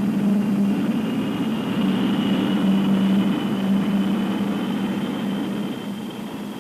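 Airliner engines running: a steady drone with a thin, high whine over it, slowly fading toward the end.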